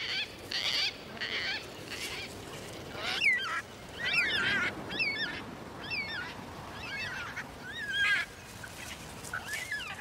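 Parrots calling: softer repeated calls at first, then from about three seconds in a run of loud calls, each sweeping up and down in pitch, coming roughly one every three-quarters of a second.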